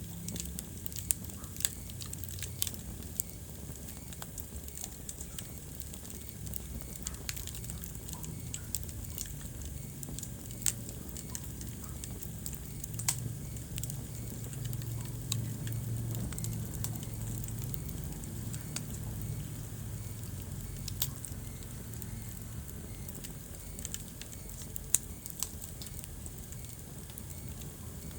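Wood fire in a fireplace crackling, with irregular sharp pops over a steady low rumble of the flames that swells a little midway.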